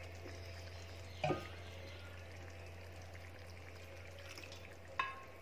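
Water poured from a steel bowl into a pan of simmering curry gravy, which bubbles and sizzles quietly, with a short knock about a second in.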